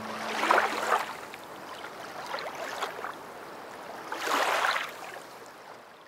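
Water sound effect: two swells of surging water, about half a second in and again about four seconds in, over a softer wash that fades toward the end.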